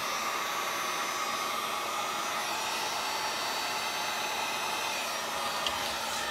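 Electric heat gun on its low setting, running steadily: an even rush of blown air with a faint steady whine from its motor. It is being used to shrink heat-shrink tubing over soldered wire connections.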